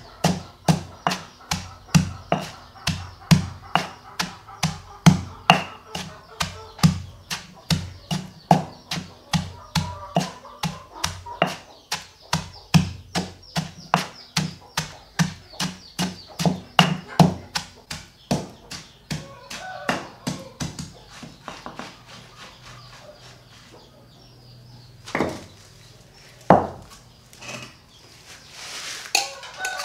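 A rapid, even series of sharp knocks or taps, about two to three a second, that thins out after about eighteen seconds, followed by two louder single knocks near the end.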